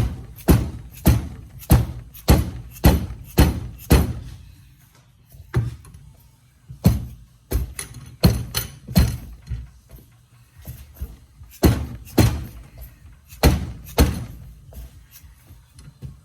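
Dead blow hammer striking a Lancer Evolution CV joint to drive it off the splined axle shaft: a run of dull thunks about two a second, in bursts with a few short pauses.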